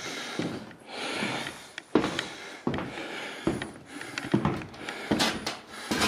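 Irregular knocks, bumps and rustles of handling and movement, with a few sharper thumps spread through it.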